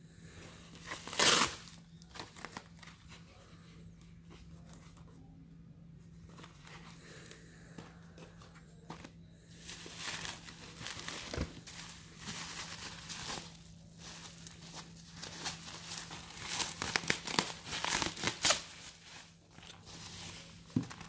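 Bubble-wrap packaging crinkling and rustling as it is handled and pulled open around deflated vinyl beach balls. There is a sudden loud rustle about a second in, and denser crinkling through the second half.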